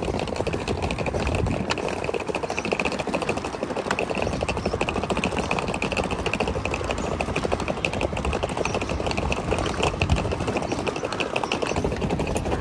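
Hard-shell suitcase's wheels rolling fast over brick paving, a dense, steady rattling clatter.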